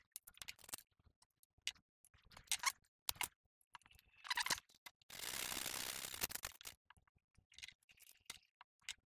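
A piece of cork being sanded by hand: a few short scraping strokes among light taps and clicks, with one longer rasp about five seconds in that lasts over a second.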